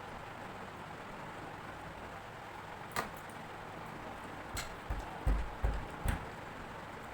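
Close-miked eating sounds of a rice-and-fish meal over a steady hiss: one sharp click about three seconds in, then a quick cluster of clicks and soft, deep thumps near the end.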